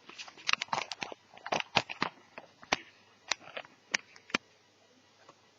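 An irregular run of sharp clicks and light knocks of hard plastic being handled, as the Asus Eee PC netbook's case is fitted back together. The clicks stop about four and a half seconds in.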